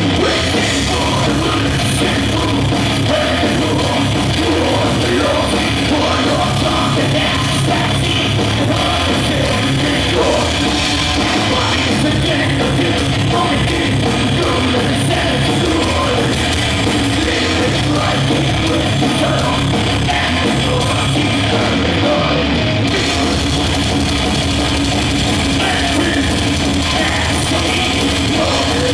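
Death/thrash metal band playing loud and continuously live: distorted electric guitars, bass and drum kit, with shouted vocals.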